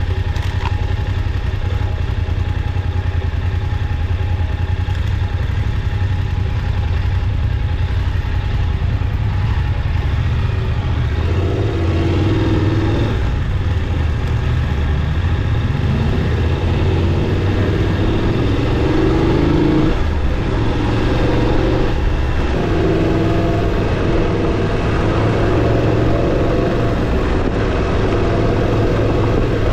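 Motorcycle engine running steadily under way; about eleven seconds in its pitch starts rising and falling as the rider works the throttle.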